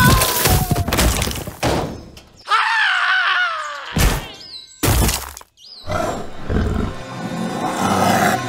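Dramatic background music cut with added sound effects: sharp crash and impact hits at the start and twice more, about four and five seconds in, and a wavering, falling pitched cry about three seconds in.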